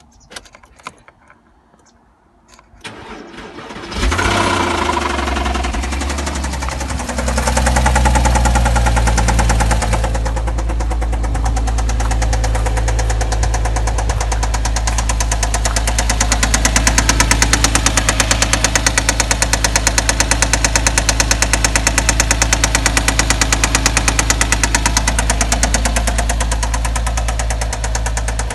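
2007 Porsche Cayman's flat-six engine cranking and starting a few seconds in, flaring to a high idle, then settling into a steady idle with a fast, regular ticking. This ticking is the engine noise the owner is asking about.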